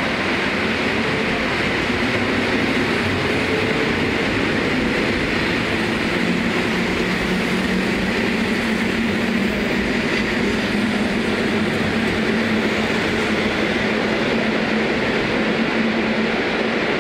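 PKP class ED72 electric multiple unit moving off and running past close by: steady rumble and rail noise with a low electric hum that rises slightly in pitch, then holds.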